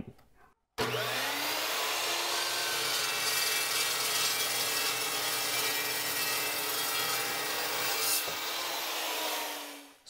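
Metal-cutting cold saw starting up about a second in, its pitch rising and then holding steady as the blade cuts through a large copper crimp lug on 500 MCM cable. The sound changes shortly before the end and then fades as the saw winds down.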